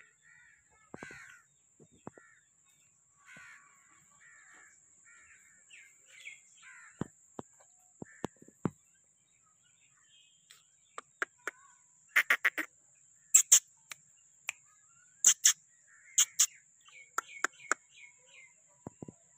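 Crows cawing repeatedly in the first half, over a faint steady high-pitched tone. From about the middle on, a series of sharp, loud knocks, some in quick pairs, are the loudest sounds.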